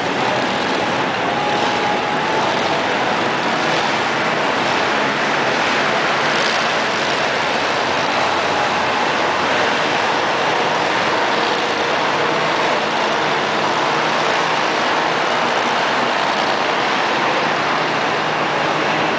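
Monster truck engines running, loud and steady with no breaks.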